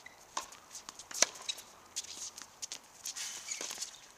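Tennis ball struck by rackets and bouncing on a hard court during a doubles rally: a string of sharp pops, the loudest a little over a second in, with shoes scuffing on the court.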